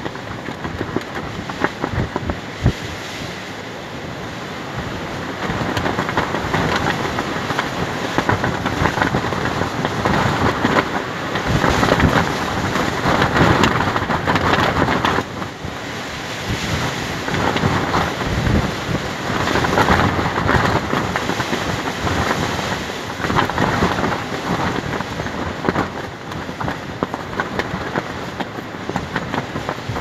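Strong gusting wind buffeting the microphone, with a large white sheet of fabric flapping and snapping in it. The gusts swell and ease, loudest in the middle.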